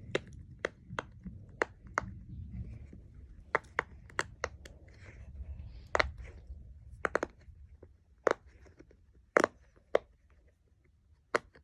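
Silicone pop-it fidget toy being pressed, its bubbles popping in a string of sharp, irregular clicks, some in quick clusters, with longer gaps near the end.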